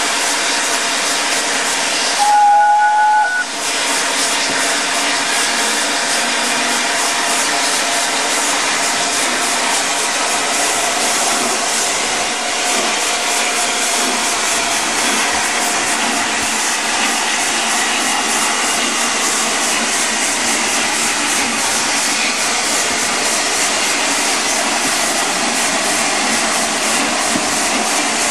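The new-build Peppercorn A1 steam locomotive Tornado working hard, a steady rush of exhaust and hiss heard from a carriage behind it. About two seconds in, a whistle gives one short blast of about a second.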